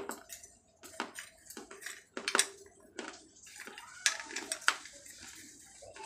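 Dried clay pot pieces crunched and chewed between the teeth: irregular sharp cracks, the loudest around two seconds and four to five seconds in.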